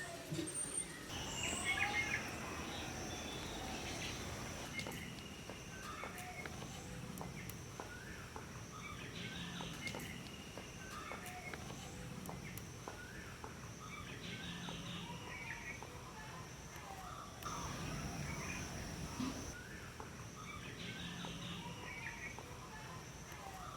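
Birds calling, one phrase repeating every few seconds, over a steady high-pitched insect drone.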